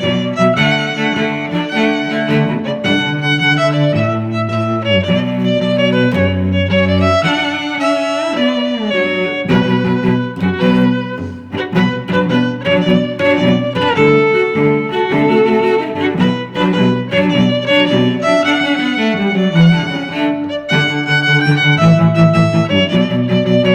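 Background music played on bowed strings, violin with lower cello-like notes, moving through a continuous melody.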